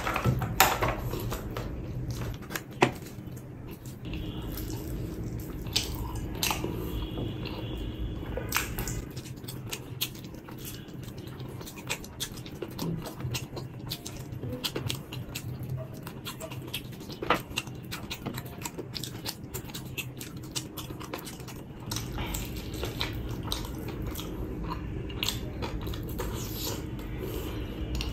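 Close-miked eating sounds: a man biting into and chewing fried chicken in sauce, with many short, irregular wet clicks and crunches from the mouth.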